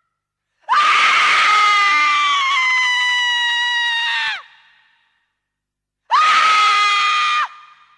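Two long, high-pitched screams used as a horror sound effect. The first lasts about three and a half seconds and slowly sags in pitch before cutting off. A shorter second scream follows about six seconds in.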